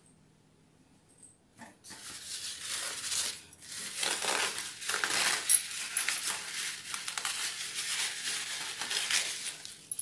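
Paper towel rustling and crinkling as a sheet is pulled off the roll and handled, with many small crackles, starting about two seconds in after a near-silent start.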